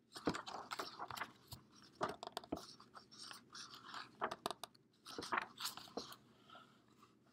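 Pages of a hardcover picture book being turned by hand: dry paper rustling and crackling in several short bursts.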